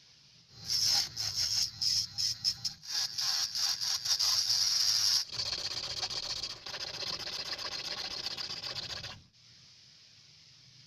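A metal hand file rasping across a small piece of translucent plastic cut from a gas lighter, held on a wooden block. It starts with short, separate, loud strokes, then turns into a quieter, steadier rasping that stops about nine seconds in.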